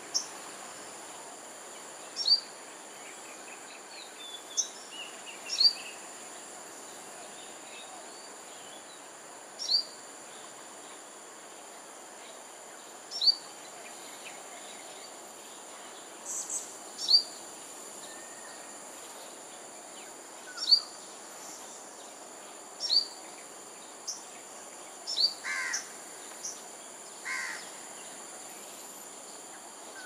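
A bird repeatedly gives short, sharp, high chirps, each sliding down in pitch, every two to three seconds over a steady high-pitched insect drone. Two lower calls come near the end.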